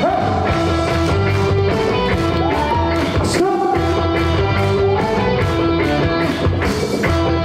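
Upbeat trot song's backing music with a steady drum beat, bass and electric guitar, starting a new song.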